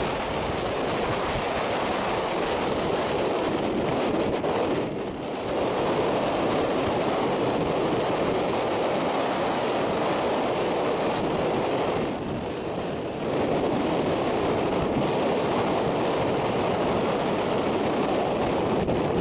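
Steady wind rushing over the microphone, dipping briefly twice.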